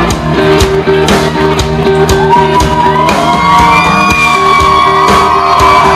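Live country-rock band playing loud, with a steady drum beat, electric guitar and bass, and shouts from the audience over it, heard from within the crowd in a large room.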